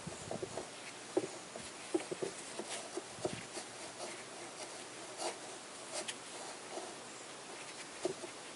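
Irregular small metallic clicks and knocks with light rubbing from a windshield wiper linkage being worked by gloved hands. The joint between the wiper motor crank arm and the linkage rod is loose and worn.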